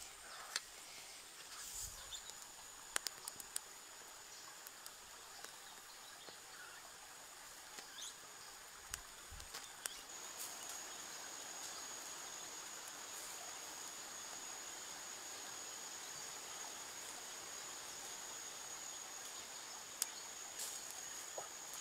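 Insects with a steady high-pitched trill, louder from about halfway through, over quiet outdoor background noise with a few scattered sharp clicks.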